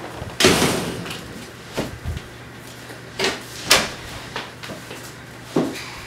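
Front door being pushed shut with a loud thud about half a second in, followed by a few lighter knocks and bumps.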